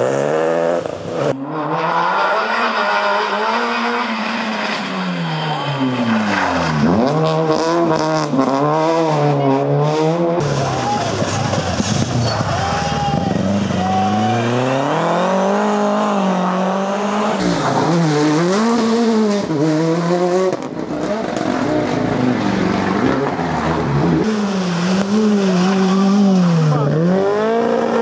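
Rally cars driven hard through a bend one after another, among them a modern Renault Clio and a historic Opel Kadett coupé. Each engine revs up and down many times as the car accelerates, lifts and changes gear, with sudden jumps from one car to the next.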